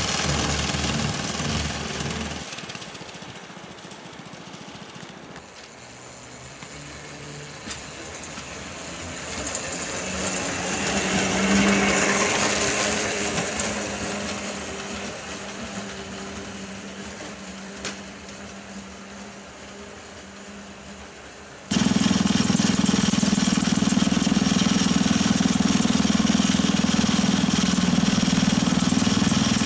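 Small gasoline engine of a motorised rail rider running on the track. It fades after a couple of seconds, swells in the middle and dies away, with two short clicks. Near the end it cuts to a loud, steady engine drone.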